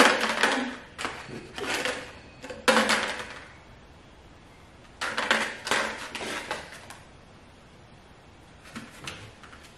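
Several short bursts of crinkling from a clear plastic wrapper as a dog noses it and picks it up in its mouth.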